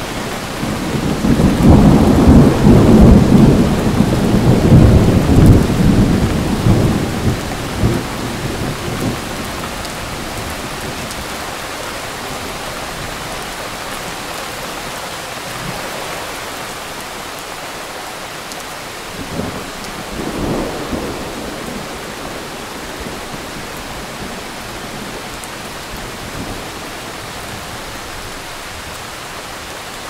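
Thunderstorm: a long, loud rumble of thunder rolls through the first several seconds over steady rain. The rain keeps falling after it, with a short, fainter rumble about two-thirds of the way through.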